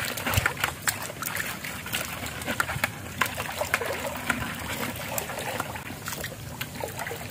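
Shallow water trickling and splashing in small irregular bursts over mud, with many scattered sharp clicks, as someone wades through it.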